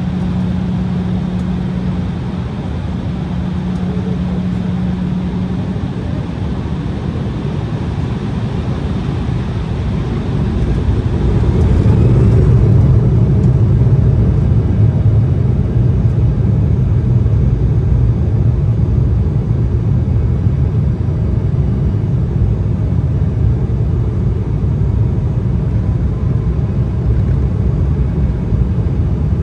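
Jet engine and airframe rumble of an Embraer E175 with its GE CF34 turbofans, heard as steady cabin noise. About eleven seconds in it grows louder with a faint rising whine and a heavier low rumble, typical of the engines spooling up for the takeoff roll.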